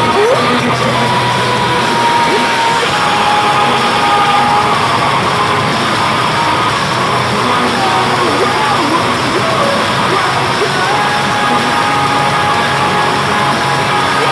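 Metalcore band playing live at full volume: distorted guitars and drums, with long held notes and a vocalist shouting over the band.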